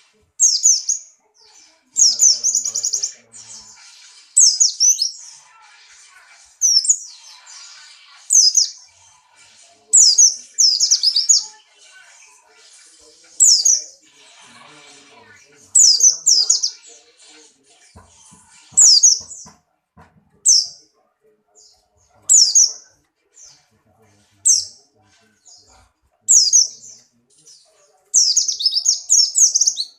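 White-eye (pleci, Buxtoni type) singing in short, high-pitched twittering bursts that repeat every second or two: the hard song of a bird in breeding condition.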